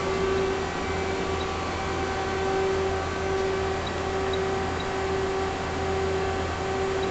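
Okuma LC20 CNC lathe powered up and humming steadily, a constant mechanical drone with a few fixed tones. A few faint short high beeps come from keys being pressed on its control panel.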